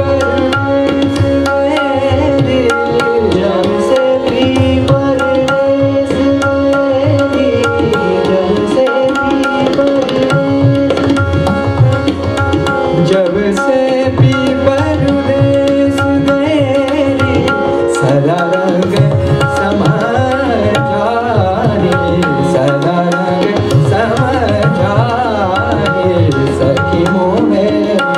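Hindustani classical music in raag Dhanashri: tabla playing a steady rhythm over a tanpura drone and harmonium, with a male voice singing fast, wavering melodic runs in the second half.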